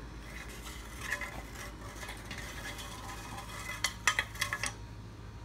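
Metal muffler pipe scraping and rattling, with a quick flurry of sharp clinks about four seconds in.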